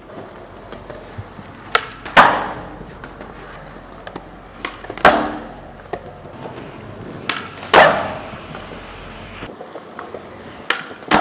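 Skateboard flatground tricks on concrete: four times, a sharp tail pop is followed about half a second later by a louder clap as the board lands, with wheels rolling on concrete between.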